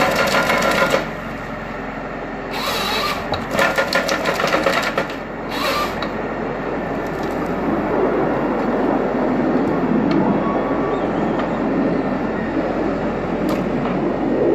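Nisula 325H harvester head feeding and delimbing a felled tree stem, with loud crackling and snapping of branches and rollers in bursts at the start and again between about 2.5 and 6 seconds. After that the Valtra tractor's diesel engine and the hydraulic crane run steadily as the head is swung to the next tree.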